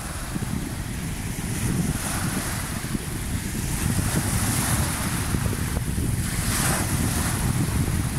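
Wind buffeting the microphone in a steady low rumble, over surf breaking and washing up the sand. The hiss of a wave swells about six and a half seconds in.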